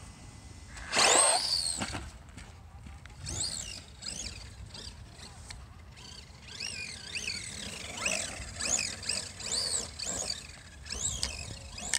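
JLB Cheetah RC truck's brushless motor on a 3S LiPo battery, whining loudly as it launches about a second in. Its high whine then rises and falls in pitch again and again as the throttle is worked while the truck drives around.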